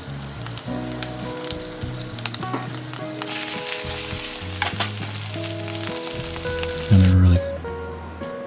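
Floured morel mushroom pieces frying in hot oil in a pan, a steady sizzle with small crackles. The sizzle grows louder about three seconds in, then cuts off sharply near the end just after a brief, loud low thump.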